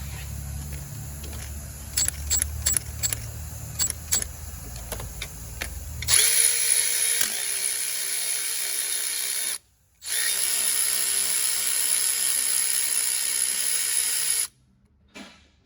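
Milwaukee M12 Fuel 3/8" extended-reach electric ratchet running: two steady motor runs of about three and a half and four and a half seconds with a short pause between, then a brief blip near the end. Before the first run there is a low rumble with a string of sharp metallic clicks.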